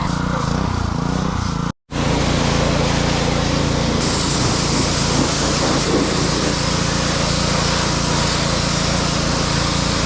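Pressure washer spraying a quad: a steady motor drone with the hiss of the water jet over it. There is a brief cut to silence about two seconds in.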